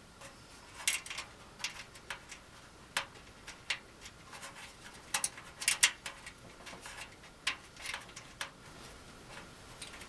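Irregular light clicks and clinks of small metal hardware as flat washers, split washers and nuts are handled and threaded by hand onto the studs of the fire table's panels and legs.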